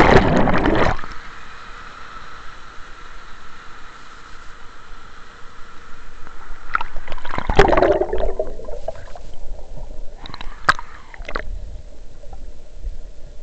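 River water splashing and gurgling around a camera dipped in and out of a stony stream: a loud splash at the start, muffled underwater noise, another bout of splashing about seven seconds in, then a few sharp knocks.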